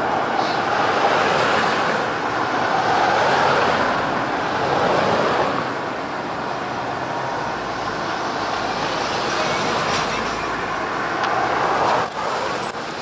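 City street traffic noise: a steady wash of passing cars that swells and eases, with a couple of short sharp knocks near the end.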